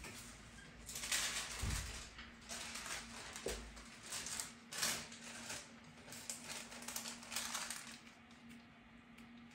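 A sheet of glassine paper rustling and crinkling as it is handled and laid over a pastel drawing, in several separate bursts.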